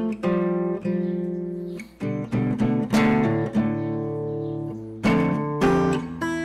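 Background music: an acoustic guitar plucking and strumming chords, each struck chord ringing out and fading before the next.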